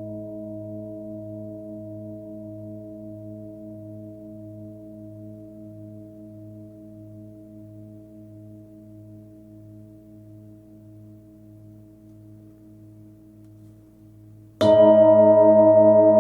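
A 26 cm Nepalese singing bowl with a fundamental of about 107 Hz rings and slowly fades, its tones pulsing with a gentle wobble. Near the end it is struck again, sharply, and rings out loud.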